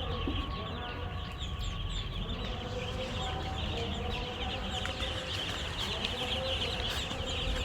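Many chicks peeping together, a dense, unbroken chorus of short high chirps, over a steady low rumble.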